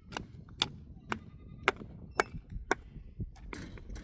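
A hand tool striking repeatedly, about two sharp blows a second, the blows thinning out near the end.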